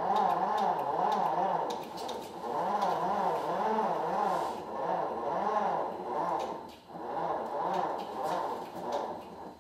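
Electric drive of a Carolift 6900 wheelchair-loading crane running as it moves a wheelchair into a car's boot. It gives a continuous motor hum that wavers up and down in pitch about twice a second, briefly easing off a few times.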